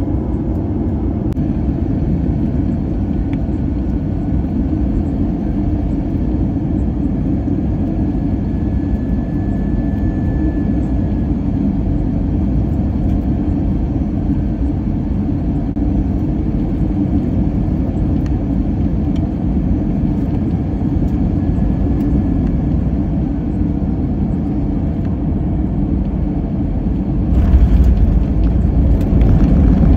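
Airbus A320 heard from inside the cabin on final approach: a steady low rumble of engines and airflow. About 27 seconds in it turns suddenly louder and rougher as the wheels touch down and roll on the runway.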